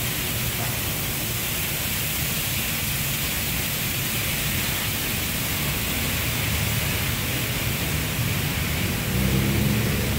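Washworld Razor touchless car wash spraying high-pressure water over a vehicle, a steady hiss throughout. A low motor hum comes in about nine seconds in.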